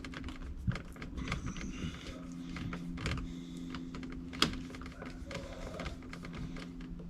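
Faint small clicks and light rattling of a plastic extension-cord plug as its screws are tightened by hand with a screwdriver, with one sharper click about four and a half seconds in, over a faint steady hum.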